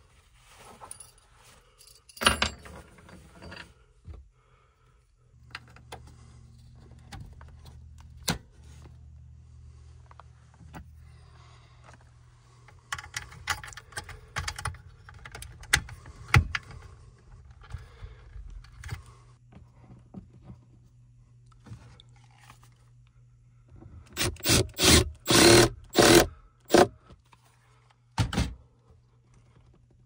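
Metal parts and tools being handled while electrical conduit and wiring are fastened: scattered clinks, rattles and scrapes, then a quick run of loud knocks near the end. A steady low hum sets in about five seconds in.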